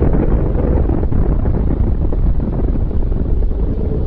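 Deep, continuous rumble of a nuclear explosion as its mushroom cloud rises, steady and loud with no separate bangs.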